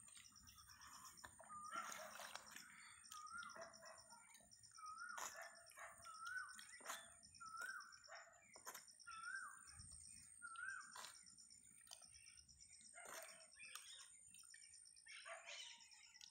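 Faint, repeated bird calls: short chirps that rise and then drop, about one a second, stopping about two-thirds of the way through. Under them are soft wet squelching clicks as a hand kneads plant paste in a bucket of liquid, and a faint steady high whine.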